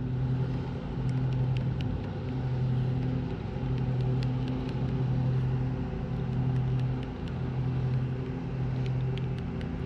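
A steady motor-like hum at a constant pitch, swelling and fading about every second and a half, with a few faint ticks over it.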